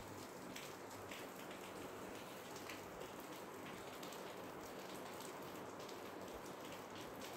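Faint steady background hiss with scattered light crackles and ticks; no speech.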